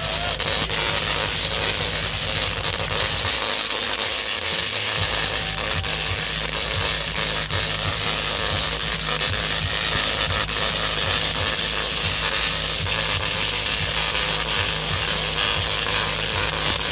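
Tesla coils firing without a break, their electric arcs buzzing and crackling loudly over a low hum.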